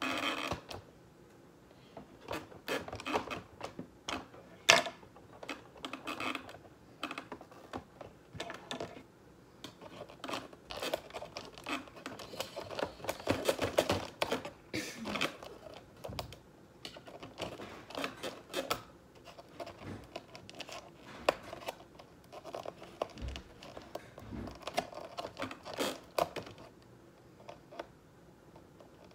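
Hands working a cardboard panel with brass paper fasteners: irregular clicks and taps with rubbing noises between them, busiest around the middle.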